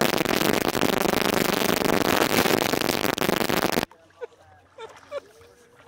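Loud, dense rush of water washing and splashing over a camera's microphone at the sea surface, cutting off suddenly about four seconds in.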